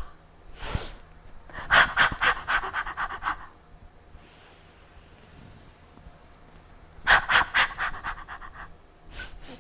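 A woman breathing in rapid, sharp breaths in and out, as a fast-breathing exercise. There are two runs of about a dozen quick breaths at about six a second: one begins about one and a half seconds in, the other about seven seconds in. A softer steady breath hiss lies between them.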